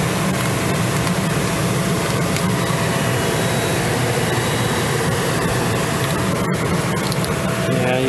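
Air handler's blower fan running, a steady loud rush of air at the open filter slot as the filter is pulled out.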